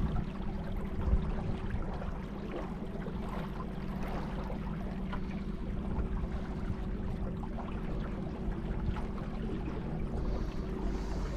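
River water rushing and splashing around a boat, with a steady low hum underneath.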